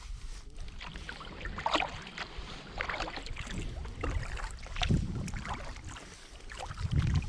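Kayak paddling on a river: irregular splashes and drips of water as the paddle blades dip and lift, with two low thumps, one about halfway through and one near the end.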